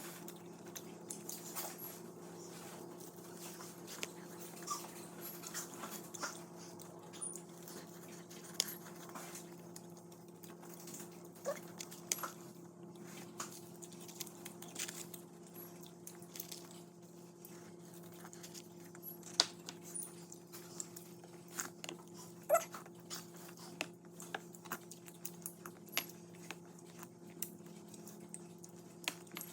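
Close-miked eating sounds: irregular crunching and wet mouth clicks as raw vegetables are chewed, over a steady low electrical hum, with a few brief high squeaks.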